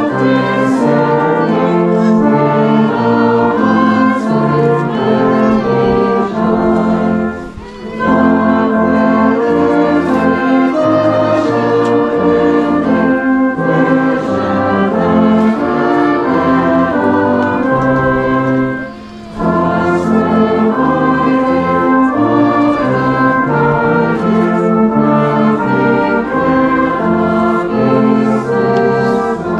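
Brass band playing a slow hymn tune in sustained chords, with two brief pauses between phrases, about seven and a half and nineteen seconds in.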